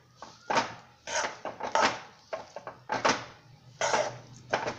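Spatula scraping around a wok while stirring ground peanuts into melted sugar and butter for chikki, in repeated strokes about one to two a second.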